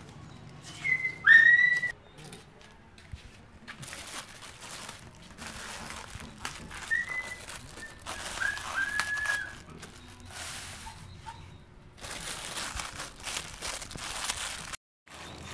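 Short whistle-like calls: a loud one about a second in that rises to a held note, and a few shorter ones between seven and nine seconds in. Under them runs rustling and crinkling of cellophane being wrapped around a string of firecrackers.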